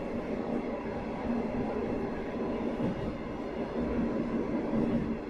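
Running sound heard inside the cabin of a Sanriku Railway 36-700 series diesel railcar under way between stations: a steady engine hum blended with wheel and rail noise.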